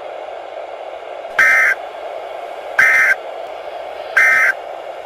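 EAS end-of-message data bursts: three short, identical buzzy digital bursts about a second and a half apart, marking the end of the alert. They play over steady radio static.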